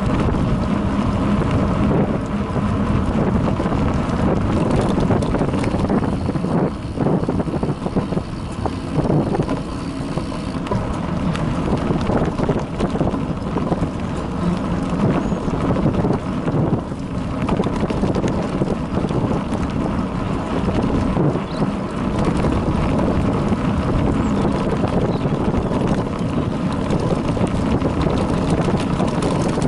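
Bicycle riding fast over a bumpy dirt track, heard from a camera mounted on the bike: a steady rumble and rattle from the tyres and frame over the ruts, with wind buffeting the microphone.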